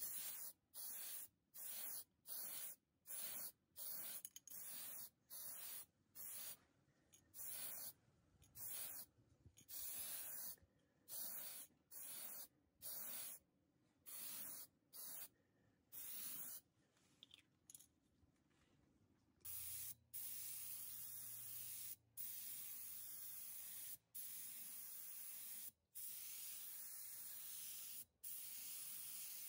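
Gravity-feed paint spray gun hissing as it sprays paint, in short bursts about once a second, then from about two-thirds of the way in as longer passes of a couple of seconds each with brief breaks.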